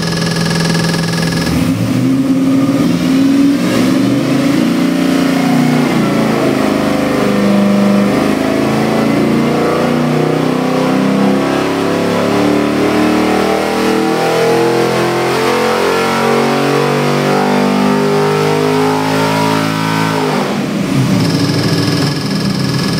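416 cubic-inch LS3 stroker V8 crate engine on an engine dynamometer making a full-throttle pull: its note climbs steadily in pitch under load for about fifteen seconds, then drops off sharply about twenty seconds in and settles to a fast idle.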